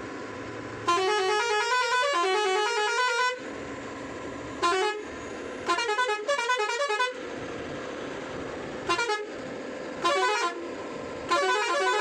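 Multi-tone musical air horn on a BharatBenz truck sounding six blasts of different length, the longest about two seconds, its notes stepping up and down in short tune-like runs. A steady hum continues between the blasts.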